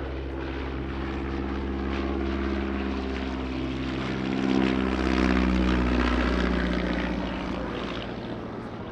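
A First World War biplane's piston engine and propeller passing by. It grows louder to a peak about halfway, then drops in pitch and fades.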